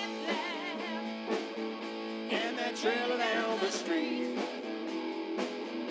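Live electric blues band playing, with electric guitar to the fore.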